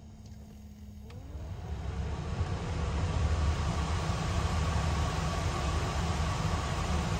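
Škoda Fabia III's heater blower fan spinning up during the fan-regulator learning routine: a click about a second in, a short rising whine, then a rush of air that grows louder over a couple of seconds and runs steadily with a faint whine.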